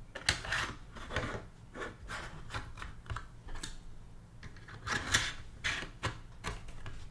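Irregular clicks and taps of solid-state drives being handled and slid into a storage-server case, hard casings knocking together, with a louder cluster of clicks about five seconds in.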